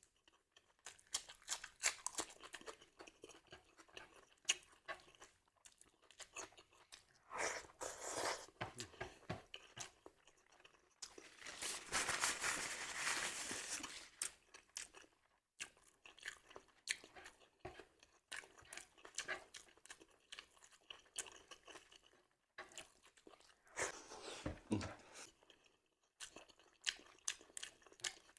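Close-up chewing and crunching of crisp raw food, with clusters of sharp crunches and a denser stretch of crunching near the middle.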